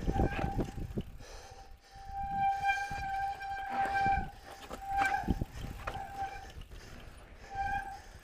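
Avid BB7 mechanical disc brakes on a mountain bike squealing in on-and-off bouts under braking down a steep rocky descent, the longest squeal lasting about two seconds. Under the squeal run a low tyre rumble and knocks from the bike jolting over rock.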